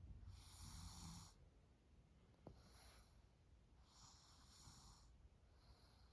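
Sleeping baby breathing faintly and noisily in a slow rhythm, with a light snore under the first breath. There are two stronger breaths about three and a half seconds apart, with softer ones between.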